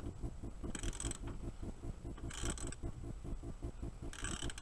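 Ratchet wrench tightening winch mounting bolts: short bursts of ratchet clicking about every second and a half as the handle is swung back and forth, over a faint rapid ticking.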